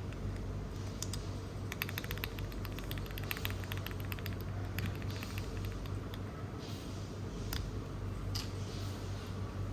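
Typing on a Monsgeek M1W mechanical keyboard: a quick run of keystrokes in the first few seconds, then slower scattered key presses, over a steady low hum.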